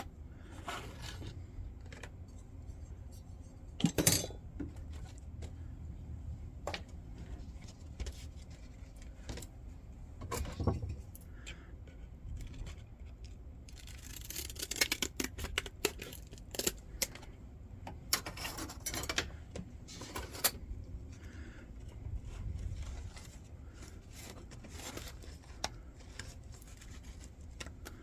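Hand tools and small parts being handled on a workbench: scattered clicks, taps and scrapes, with a sharp knock about four seconds in and runs of quick clicks a little past halfway.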